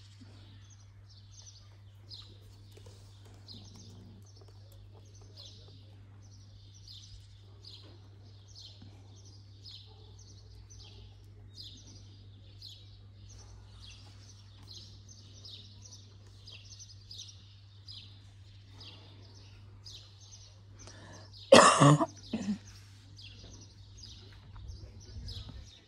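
A small bird chirping over and over, about twice a second, over a steady low hum. About three quarters of the way in there is a loud cough, followed by a smaller one.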